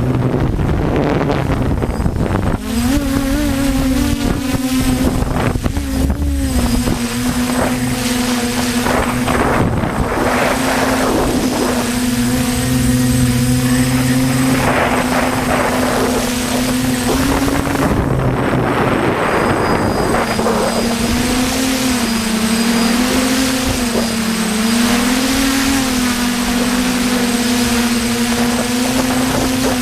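DJI F450 quadcopter's motors and propellers running with a steady hum, the pitch wobbling up and down in the last third as motor speed shifts. Gusts of wind rush over the microphone in the middle.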